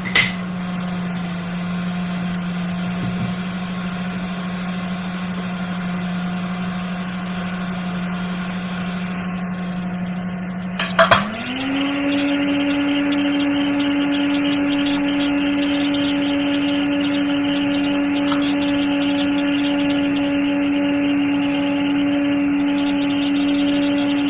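Hot-air rework station blowing, a steady motor hum. About eleven seconds in there are a couple of clicks, then the hum rises to a higher pitch and runs louder, as the airflow is turned up.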